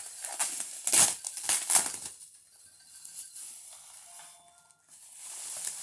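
Bubble wrap and plastic packaging crinkling as it is handled and pulled apart, with two louder crackles about one and two seconds in, then quieter rustling.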